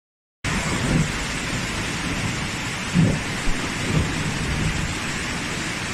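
Flash floodwater rushing in a torrent down a street, with heavy rain: a steady rush of water that starts about half a second in. Low rumbles swell up about one, three and four seconds in.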